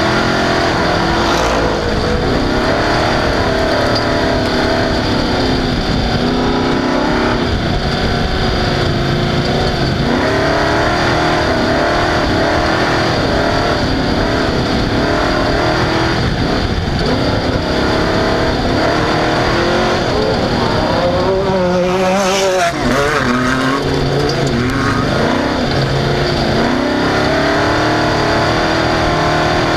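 Off-road race vehicle's engine running hard, its pitch rising and falling again and again as the throttle is worked. About twenty-two seconds in the note drops briefly and a burst of noise cuts across it.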